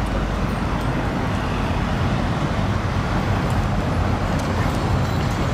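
Steady low rumble of outdoor background noise with a few faint ticks, and no single distinct event.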